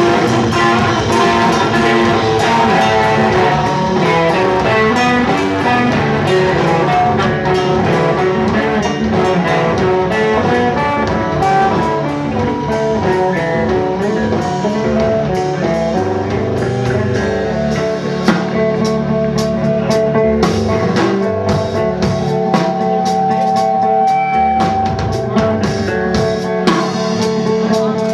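Live instrumental rock band of electric guitar, bass and drum kit playing; cymbal and drum hits become sharper and more frequent in the second half.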